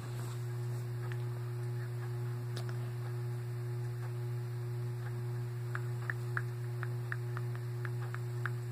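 Steady low electrical hum with a faint higher tone above it. From about six seconds in come short, light ticks, two or three a second.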